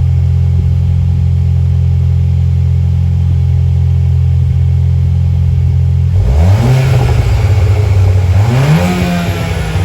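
Turbocharged 2.0-litre four-cylinder of a VW Golf 8 R Variant through a one-off straight-pipe cat-back exhaust with a silencer, in R mode: it idles steadily for about six seconds, then revs up, the pitch climbing in two steps and easing back slightly near the end.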